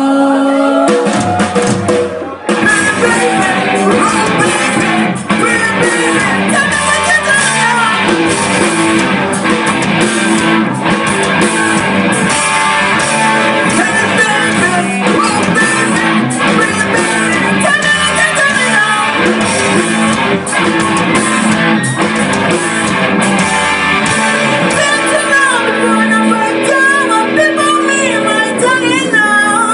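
Rock band playing, with electric guitar and singing. The music drops briefly about two seconds in, then the full band comes back in.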